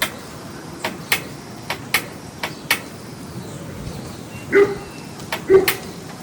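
A run of sharp clicks and knocks, then a dog barking about once a second, over a steady background noise.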